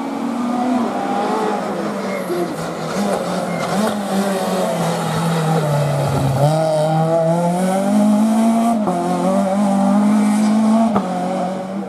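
Citroën C2 rally car's engine revving hard on a stage as it approaches and passes close by. The pitch drops to its lowest about halfway through as it slows for the bend, then rises again as it accelerates away.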